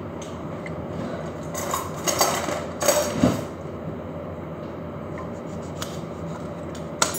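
Kitchen dishes and utensils clattering, mostly in a cluster about two to three seconds in, then a single sharp knock near the end, over a steady background noise.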